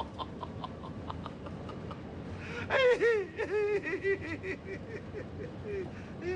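A person laughing: soft, breathy pulses of laughter, then about two and a half seconds in a louder, high-pitched burst of laughter in quick rhythmic pulses, about four a second.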